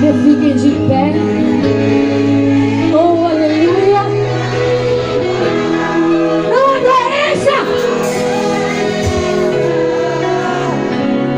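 Live gospel worship music: a woman's voice singing wavering, ornamented lines over sustained held chords.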